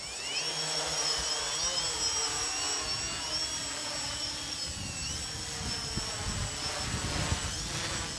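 A small drone's electric motors whining in flight, the pitch wavering up and down. Wind gusts rumble on the microphone from about halfway through.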